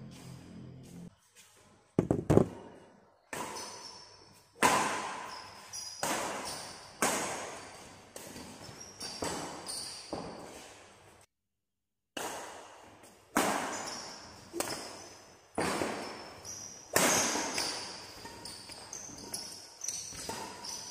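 Badminton rally: rackets strike the shuttlecock about once a second, each sharp crack echoing in the hall, with short high squeaks of shoes on the court between hits. The sound cuts out completely for about a second midway.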